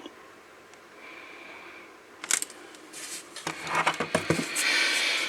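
Handling noises: a sharp click about two seconds in, then a run of clicks and knocks over rustling from about three and a half seconds on.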